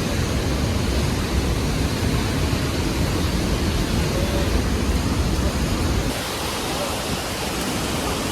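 Steady rushing of whitewater from the Merced River and Vernal Fall, with a low buffeting rumble under it that drops away about six seconds in.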